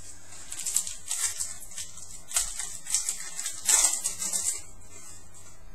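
A 2011 Playoff Contenders football card pack being torn open, its wrapper crinkling in a run of crisp rustles for about four seconds.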